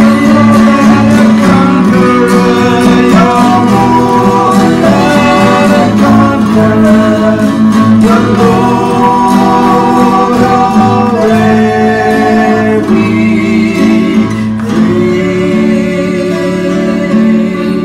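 A woman and a man singing a worship song together, accompanied by a strummed twelve-string acoustic guitar.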